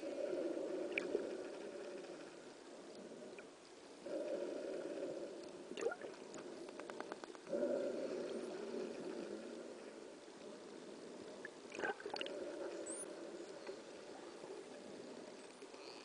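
Muffled underwater rushing noise that surges up suddenly every few seconds. Faint high dolphin whistles come through once or twice, with a short rapid click train a little after halfway.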